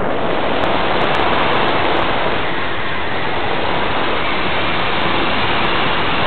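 Steady rush of airflow over the microphone of a keychain camera mounted on a Parkzone Radian RC glider in flight: an even hiss with no motor whine in it.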